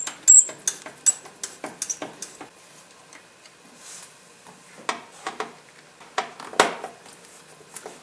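Irregular small clicks and taps of a Phillips screwdriver working the screws of a plastic door armrest, the sharpest right at the start.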